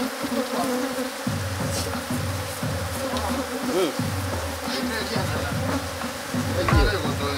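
Honeybees buzzing in numbers around an opened hive, a steady drone that swells briefly near the end.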